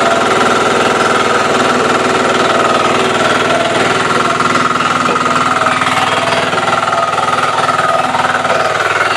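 Small engine of a remote-controlled self-propelled flail mower running hard with a fast, even pulsing as the machine cuts grass; its note dips near the end.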